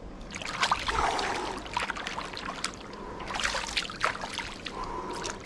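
Pool water splashing and sloshing as a person scoops and slaps it with his hands, in two bouts of irregular splashes.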